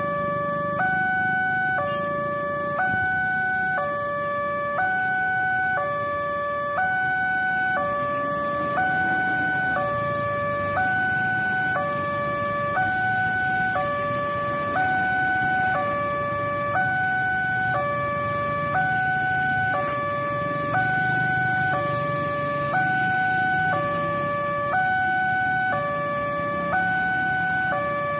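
Railway level-crossing warning alarm from a pole-mounted horn loudspeaker: an electronic two-tone signal switching between a higher and a lower tone about once a second, sounding while the crossing is active for an approaching train. Motorcycle traffic runs low underneath.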